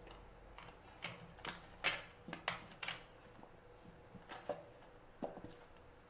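Thin clear plastic chocolate mold crackling and clicking as it is flexed and pressed to pop set chocolates out onto a paper plate. Sharp clicks come in two clusters: a quick run in the first half and a few more past the middle.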